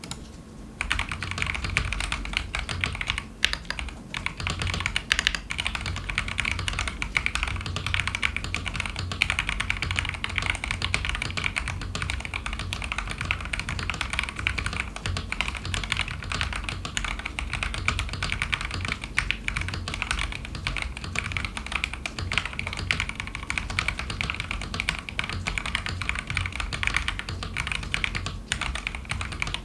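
Continuous fast typing on a Feker IK75 Pro mechanical keyboard with Akko Jelly Black linear switches: a dense, steady stream of key presses and keycap clacks that starts about a second in.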